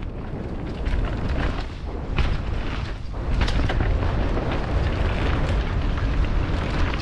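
Wind buffeting the microphone of a camera on a mountain bike riding fast down a dirt trail, a heavy rumble that builds up about a second in, with tyres on dirt and the bike knocking and clattering over bumps.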